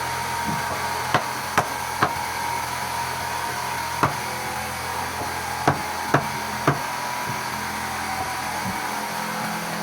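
Seven sharp knocks of nails being driven into wood, coming in uneven groups, over a steady mechanical hum with a thin whine.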